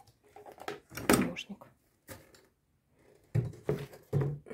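A few dull knocks and thumps of things being handled and moved about on a painting table, the loudest about a second in and a cluster near the end.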